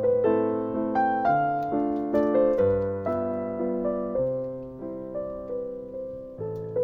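Background piano music: a gentle melody of single notes and chords, each struck and fading, about two a second.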